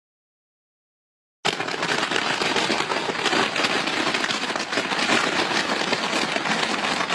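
Silence, then fireworks burning with a dense, continuous crackle that starts abruptly about a second and a half in.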